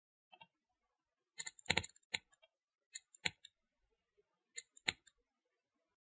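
Computer mouse button clicking: a handful of sharp single clicks, mostly in close pairs, spread through the middle of the stretch.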